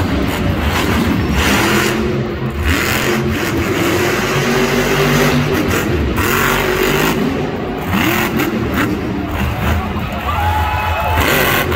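Monster truck's supercharged V8 engine revving hard during a freestyle run, its pitch rising and falling again and again.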